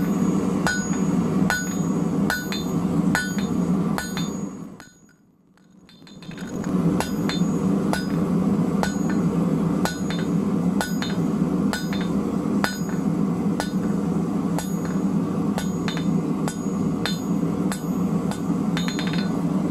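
Hand hammer striking a red-hot 12 mm round steel bar on an anvil, drawing it down to a taper: steady ringing blows, a little more than one a second, over a steady low rumble. The sound briefly drops away about five seconds in.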